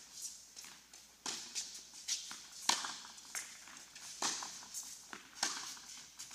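Tennis rally on an indoor hard court: rackets striking the ball and the ball bouncing, a series of sharp, irregular knocks, each with a short echo in the hall, along with players' footsteps.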